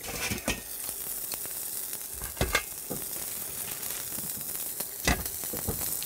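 Meat sizzling on a barbecue grill: a steady hiss, with a few sharp knocks about half a second, two and a half and five seconds in.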